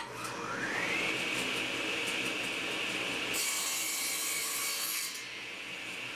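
Old table saw switched on with a click, its motor spinning up with a rising whine and then running steadily. About three and a half seconds in, the blade crosscuts a small wooden block fed on the miter gauge, a harsher, hissy sawing sound for about two seconds, after which the saw runs free again.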